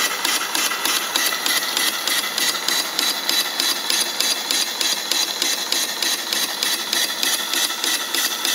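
Homemade double-acting square steam engine running on live steam at a fast, even beat, exhaust steam puffing out with each stroke amid the clatter of its rods and valve gear.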